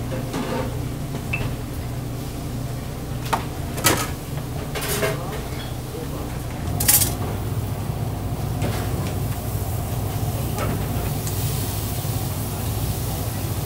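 Kitchen handling sounds: a few sharp knocks and clatters over a steady low hum, the loudest about seven seconds in. After that comes a soft, steady hiss as burger bun halves are laid on a flat-top griddle to toast.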